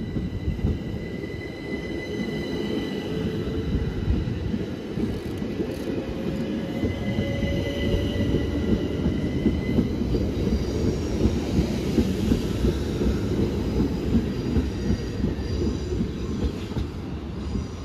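Southern Class 377 Electrostar electric multiple unit moving along the platform. Its traction motors whine, rising in pitch through the first half as it picks up speed, over a steady rumble of wheels on rail with regular clicks from the rail joints.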